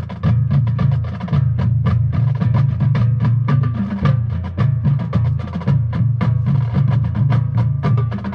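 Marching band percussion break: many rapid, sharp strokes over a steady low bass line, with the brass dropping out.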